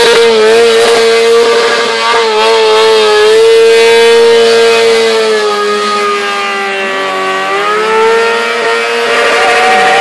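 Loud motorcycle engine held at high revs through a stationary burnout, the rear tyre spinning and smoking on the asphalt. The revs sag about seven seconds in and climb back.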